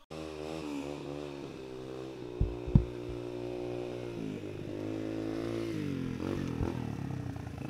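Small dirt bike engine running at low speed as it is ridden slowly over grass, its pitch rising and falling with the throttle. Two sharp thumps come about two and a half seconds in, the second the loudest sound.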